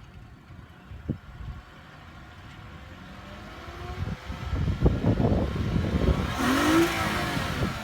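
2014 Lexus IS250's 2.5-litre V6 through its stock exhaust, running quietly at first and then accelerating, growing steadily louder from about three seconds in. The engine note rises and is loudest near the end, with a rush of exhaust noise.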